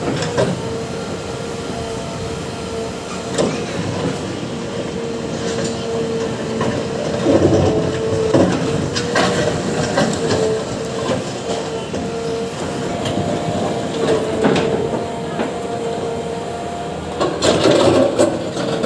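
JCB excavator running with a steady whine from its engine and hydraulics, under irregular clanks and rattles of the bucket working a soil-and-stone mix. A louder burst of clattering comes near the end.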